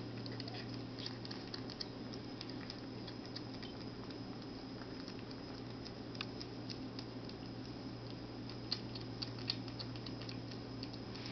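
Persian kittens eating: a stream of small, irregular clicks and ticks, a few louder ones bunched together about nine seconds in, over a steady low hum.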